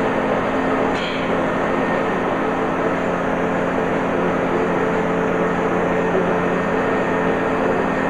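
Automatic milking robot and its vacuum system running: a loud, steady machine drone with hiss and a few steady hum tones. A brief sharp click comes about a second in.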